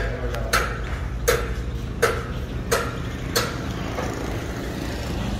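Footsteps of sneakers walking on a packed dirt floor, six even steps about 0.7 s apart, over a low steady hum.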